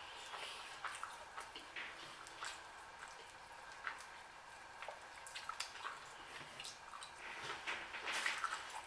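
Close-miked mouth sounds of someone eating shrimp and ramen noodles: soft wet smacking and small chewing clicks, scattered at first and busier and louder near the end.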